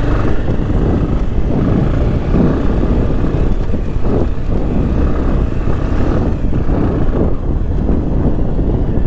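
Motorcycle engine running steadily while the bike rides over a rough dirt road.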